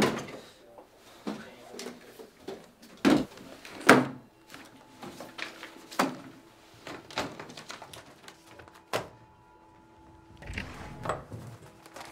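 Sharp clicks and knocks of an aluminium briefcase and a wooden office cabinet door being handled, one every second or two. A faint steady hum comes in about eight seconds in.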